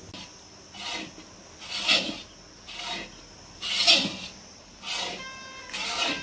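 Long iron ladle scraping and stirring dry semolina around a large iron kadhai: about six rasping strokes, roughly one a second.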